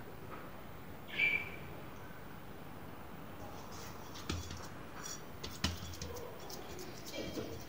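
A bird chirps once, briefly, about a second in. From about four seconds on come soft scattered taps and clicks of a hand working soft biscuit dough in a bowl.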